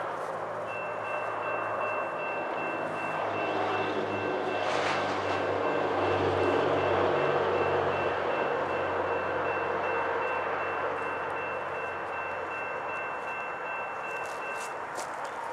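Railroad grade-crossing bell ringing steadily from about a second in until near the end, over the low rumble of an approaching diesel locomotive, an EMD SD40-2. The rumble swells toward the middle and then eases.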